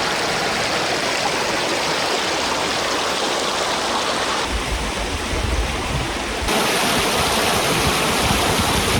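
A stream's water rushing steadily over its bed. The sound changes abruptly twice, about four and a half and six and a half seconds in.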